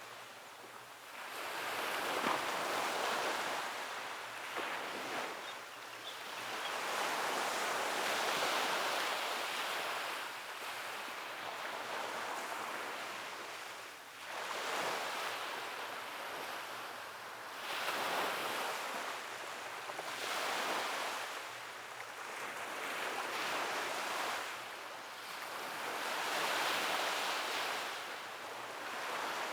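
Ocean waves washing onto a beach, each surge of surf swelling and ebbing in turn, roughly every three to four seconds.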